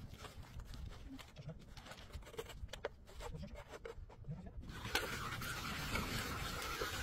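Water from a garden hose pouring into a metal pot of raw meat chunks being washed by hand, starting suddenly about five seconds in and running steadily. Before it, faint knocks and handling sounds.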